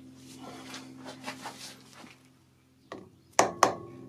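Hammer tapping a metal plate down into a milling-machine vise to seat it: two sharp taps about a quarter second apart near the end, each ringing briefly. Before them, faint handling clicks over a low steady hum.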